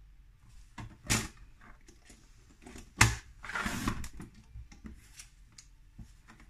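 Sliding-blade paper trimmer cutting a strip of patterned paper. There is a sharp click about three seconds in, then about a second of scraping as the blade carriage runs along its track, with lighter paper rustles and taps around it.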